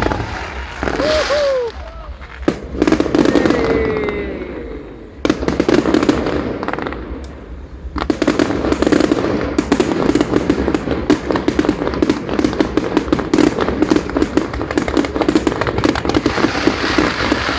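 Fireworks display going off: scattered bursts at first, then from about 8 seconds in a continuous dense crackle of rapid pops.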